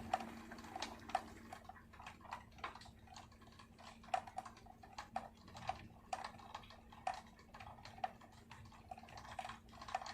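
Leftover raindrops dripping onto a wooden surface after rain, irregular sharp ticks about two or three a second over a faint hiss and a faint steady hum.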